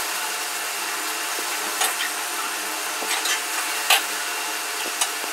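A brush scrubbing a wet, soapy blanket spread on a stone floor: a steady rasping hiss, with a few sharp knocks in the second half.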